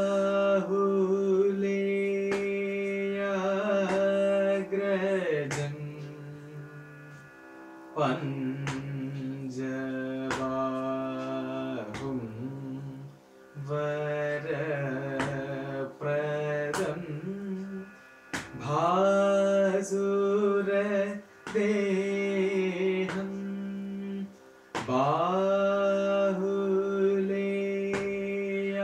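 A male voice sings a Carnatic song in raga Salagam without words being clearly picked out, holding long vowel notes with sliding ornaments (gamakas), in phrases of several seconds broken by short breaths. Sharp little taps sound here and there through the singing, from his hand keeping the adi tala beat on his thigh.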